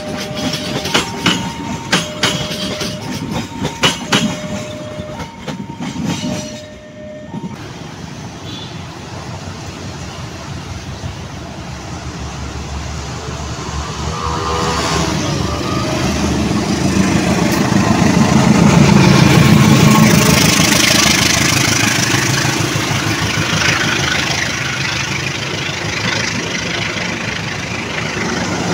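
Passenger coaches rolling past with wheels clicking over the rail joints while a level-crossing alarm sounds two alternating tones. After a cut about seven seconds in, a KAI diesel locomotive approaches, gives a short horn call about halfway, and passes with its engine loud, followed by its coaches rumbling by.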